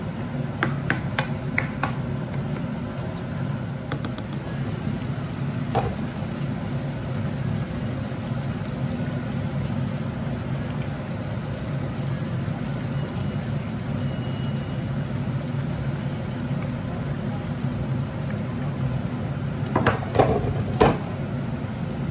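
Chicken pieces cooking in sauce in a non-stick frying pan, a steady sizzle and bubbling over a low hum. A few light clicks of a spatula against the pan in the first two seconds, and a couple of louder knocks near the end.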